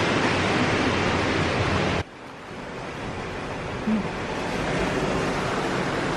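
Ocean surf washing over rocks, a steady rush of waves. About two seconds in it drops suddenly to a quieter rush that builds back up.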